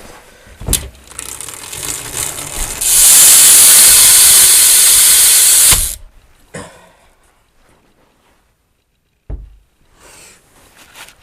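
BMX rear hub buzzing as the rear wheel freewheels. It is loud and steady for about three seconds, with lighter ticking before it and a thump near the start and another near the end.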